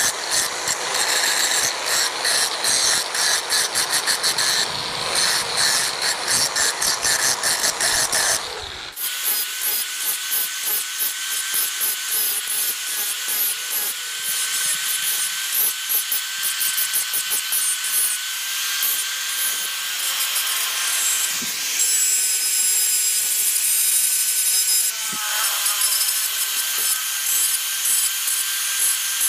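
Electric angle grinder running, its disc grinding the end of a steel car leaf spring with a steady rasping. About nine seconds in the sound changes abruptly to a thinner grinding hiss with a steady high motor whine.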